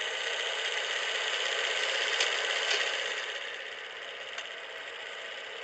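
A steady mechanical whirring and rattling, easing off a little after about three seconds, with a few faint sharp clicks.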